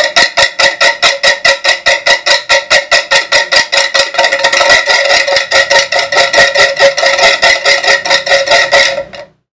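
Homemade bottle-cap scraper noisemaker: a stick rubbing over the threads of a plastic bottle cap as the bottle whirls on a skewer, making a loud, creaky clicking at a steady rate of about five clicks a second. It stops suddenly near the end.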